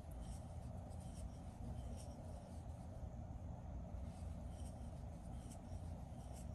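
Faint scratching and rustling of yarn being drawn through loops with a crochet hook while double crochet stitches are worked, with small scattered ticks over a low steady hum.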